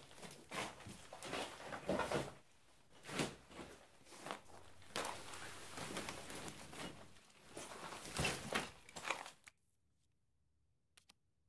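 Footsteps, shuffling and crunching on rubble and broken plaster as a man walks over the debris and sits down, in irregular scrapes and knocks that stop suddenly about nine and a half seconds in. Near the end come two faint clicks.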